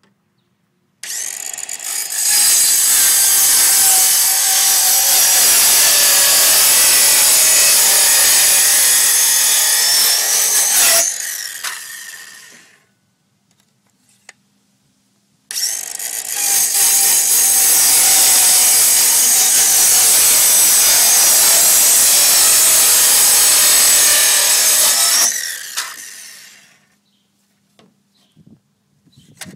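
DeWalt circular saw cutting a slot lengthwise along a plastic pipe, in two long cuts of about ten seconds each with a short pause between; each cut tails off as the saw is lifted and winds down.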